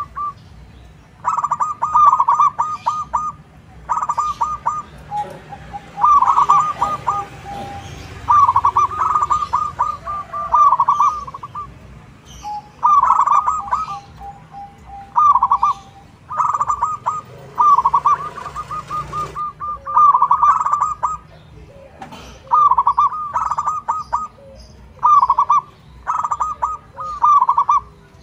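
Zebra dove (perkutut) cooing: short bubbly phrases of quick, rolling notes, repeated every second or two. Twice a lower drawn-out note runs between the phrases.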